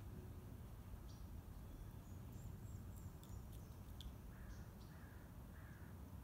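Three short, faint crow caws about four to six seconds in, over a low steady outdoor rumble, with a few faint clicks before them.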